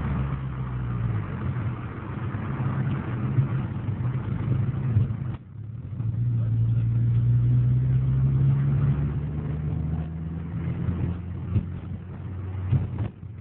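VW Golf GTI with a K04 turbo accelerating hard, the engine note climbing steadily in pitch. It breaks off briefly about five seconds in and again near the end, as at gear changes.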